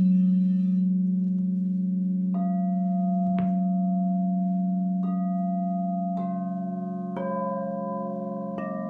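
Singing bowls ringing: a deep, steady bowl tone holds throughout while six more strikes, roughly a second apart from about two seconds in, each add a new ringing pitch over it.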